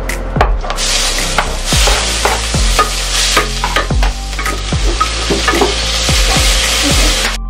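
Chopped red onion and garlic sizzling in hot oil in a wok, stirred with a spatula that scrapes against the pan again and again. The sizzle starts about half a second in and cuts off just before the end.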